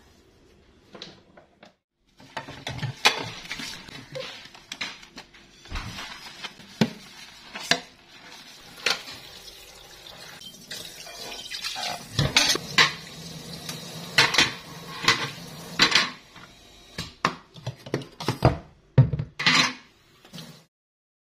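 Ceramic dishes and cutlery clinking and clattering in a sink as dishes are washed by hand and set in a rack: many sharp knocks, starting about two seconds in and stopping shortly before the end.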